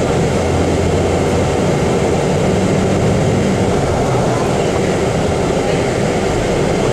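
Steady engine and road noise of a moving vehicle, heard from on board.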